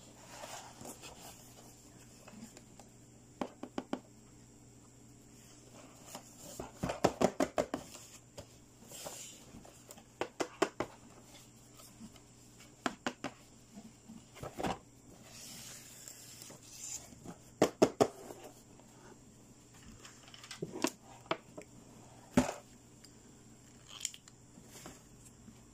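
Fingernails tapping and clicking on shrink-wrapped cardboard toy boxes as they are handled. The taps come in quick bursts, with some plastic-wrap rustling between them.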